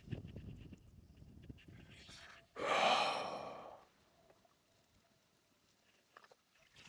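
A person's loud, breathy sigh about two and a half seconds in, lasting about a second and fading out, after low rumbling handling noise.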